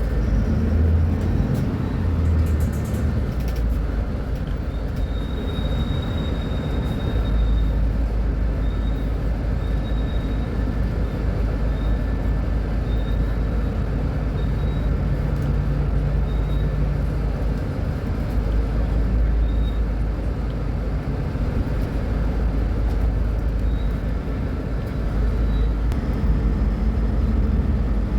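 Mercedes-Benz O500U city bus's diesel engine running steadily with a deep rumble that swells and eases a little, under a faint high-pitched whine that comes and goes.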